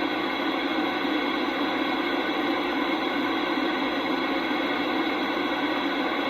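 CB radio receiver giving a steady hiss of static on an open channel, with no station transmitting.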